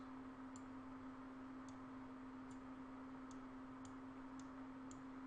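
Faint computer mouse clicks, about seven at irregular intervals, as vertices are selected and dragged, over a low steady hum.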